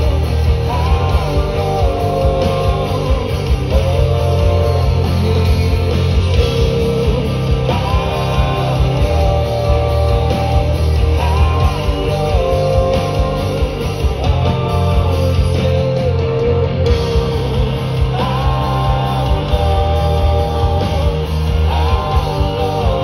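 A rock band playing live: a singer's melody over guitars and bass.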